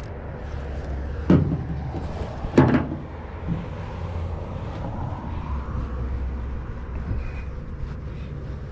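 Two sharp clunks about a second and a half apart, the second the louder, over a steady low rumble.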